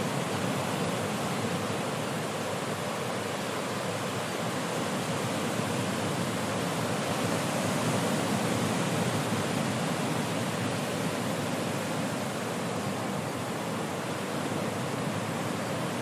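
Powerful ocean surf washing over rocks, a dense, continuous rush of breaking water that grows a little louder around the middle.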